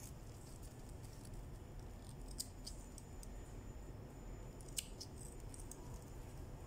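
Small scissors snipping a few times, with short sharp clicks about two and a half seconds in and a louder one near five seconds. They are cutting the petals off a male watermelon flower to bare it for hand pollination.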